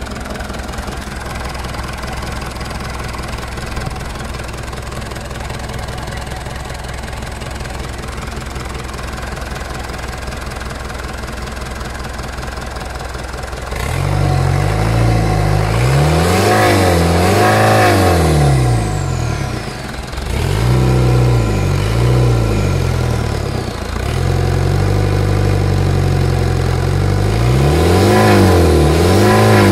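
Mitsubishi Fuso 4D34 turbocharged four-cylinder diesel engine running out of the truck, idling steadily at first. About halfway through it gets louder and is revved up and down several times.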